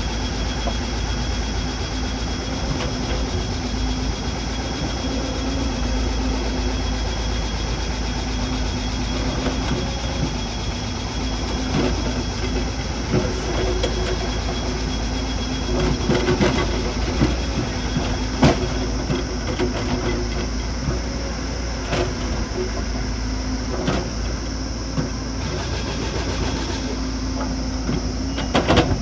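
Heavy earthmoving machine's engine running steadily with a constant hum. Sharp knocks come now and then, several in the second half.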